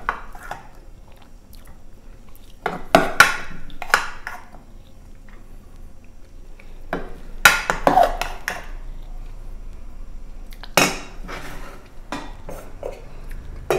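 A metal spoon scraping and clinking against a pot and a glass baking dish as rice is scooped out and served, in about three bouts of clatter a few seconds apart with lighter clicks between.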